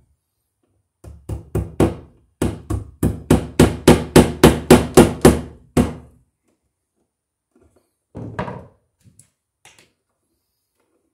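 Hammer driving the nails of a new-work electrical box into a wooden stud: a run of about fifteen sharp blows, roughly three a second, then a shorter knock a couple of seconds later.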